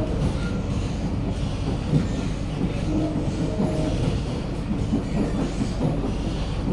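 A Kawasaki/CSR Sifang C151A metro train running, heard from inside the carriage: a steady rumble of wheels on rail. Short humming tones come and go over it, about three seconds in and again near the end.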